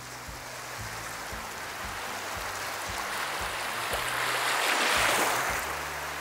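Sea waves washing in: a hiss of moving water that builds to a peak about five seconds in and then eases off.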